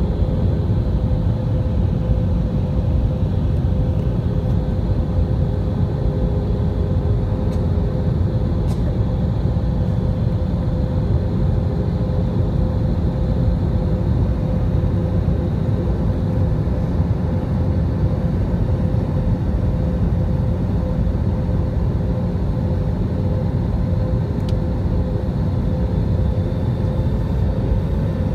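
Airliner cabin noise heard from a window seat: a steady roar of jet engines and airflow, with a faint steady hum running through it.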